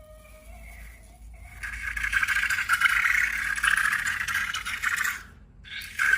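Slime being worked by hand: faint squeaky glides at first, then, after about a second and a half, a loud dense crackling and squishing that stops briefly near the end and starts again.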